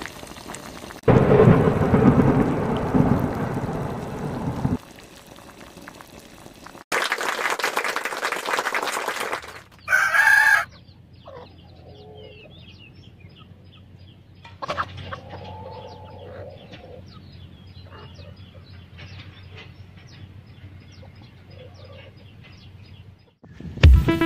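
A loud rumble, then a burst of hiss, then a short rooster crow. Chickens cluck in scattered calls over a quiet background.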